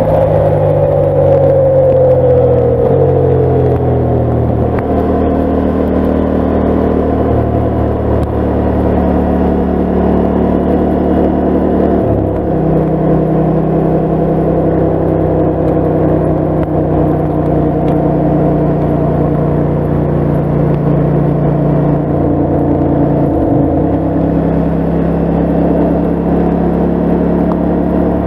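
KTM 890 Adventure's parallel-twin engine running as the motorcycle rides along the road. Its pitch falls over the first few seconds, then holds steady, with changes in engine speed about 12 and 23 seconds in.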